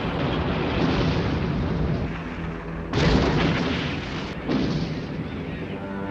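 Film sound effects of explosions and rumbling destruction: a continuous deep rumble, with a sudden blast about three seconds in and another about a second and a half later.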